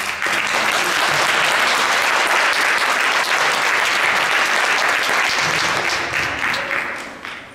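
Audience applauding: the clapping starts suddenly and dies away near the end.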